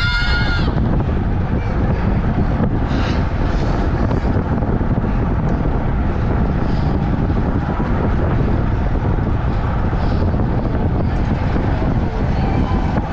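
Wind buffeting a GoPro's microphone on a bicycle racing at speed: a steady, loud rumble. A brief high-pitched tone sounds right at the start.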